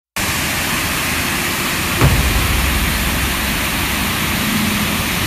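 Waterfall rushing: a steady, loud wash of falling water with a deep low rumble under it. A short low thump comes about two seconds in.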